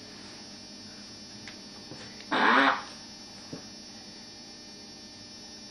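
A cat farting inside a covered plastic litter box: one short, pitched blast a little over two seconds in, over a steady background hum.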